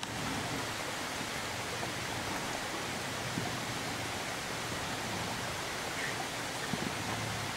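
A steady, even rushing hiss with no clear engine sound or distinct events.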